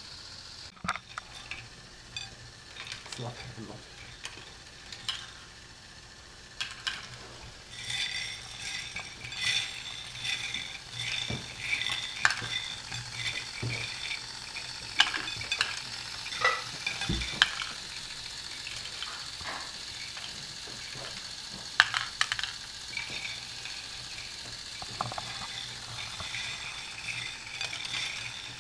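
Plastic LEGO Technic parts clicking, knocking and rattling as the large bucket wheel excavator model is handled, with scattered sharp knocks. From about 8 seconds in, a steady busy rattle runs underneath.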